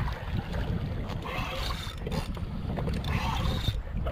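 Wind rumbling on the microphone, with water splashing against a kayak's hull.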